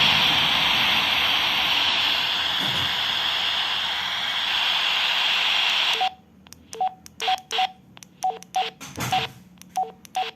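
Handheld two-way radio hissing with open-squelch static, which cuts off suddenly about six seconds in. It is followed by about a dozen short, unevenly spaced two-tone keypad beeps as its buttons are pressed.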